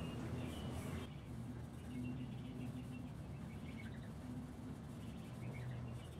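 Quiet workshop room tone: a steady low hum, with soft rubbing of a cloth rag wiping teak oil onto small wooden game pieces, faint and fading out about a second in.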